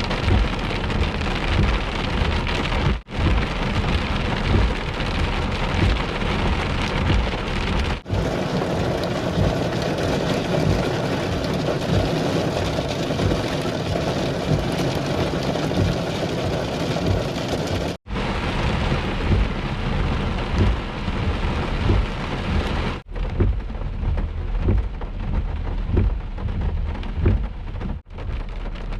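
Heavy rain falling hard, with rumbles of thunder. The sound drops out briefly five times.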